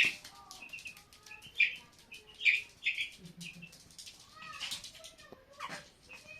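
Young chicks peeping, a run of short high peeps broken by several louder cries that drop in pitch.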